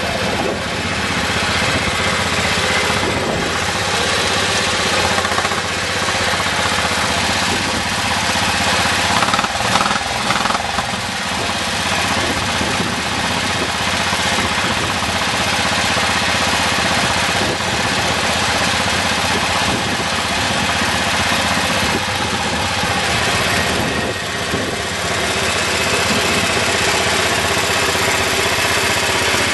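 Vintage Farmall tractor's engine running steadily while the tractor is driven slowly across grass.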